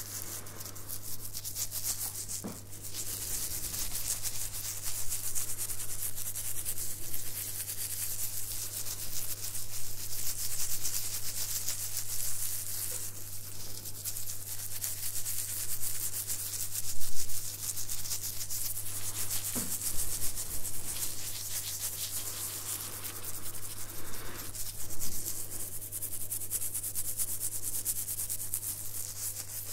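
Fingers scratching and rubbing through a short beard right against a fluffy-windscreened microphone, sometimes with a thin plastic glove, giving a dense crackly scratching. A steady low hum runs underneath.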